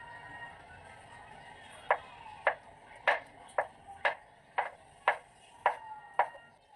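A kitchen knife chopping on a cutting board: starting about two seconds in, nine sharp, evenly spaced strikes, about two a second, each with a brief ring.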